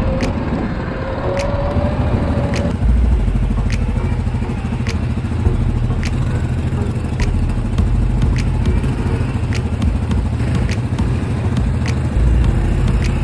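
Quad bike (ATV) engine running steadily under way, with a heavy low rumble and sharp clicks about once a second.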